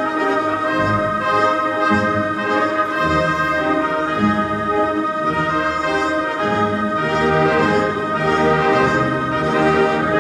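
Large symphony orchestra playing held chords that change every second or so, with trumpets and other brass over the strings.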